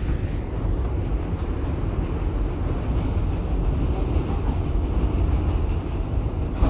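Subway train running, heard from inside the car: a steady low rumble, with one short knock near the end.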